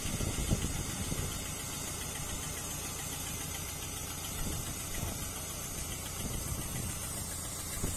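Ruston diesel shunter idling steadily, its engine providing the vacuum that drives the turntable's vacuum motor as the turntable turns.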